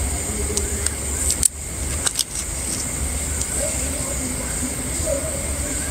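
Steady high hiss over a low rumble, broken by a few sharp clicks about a second and a half and two seconds in.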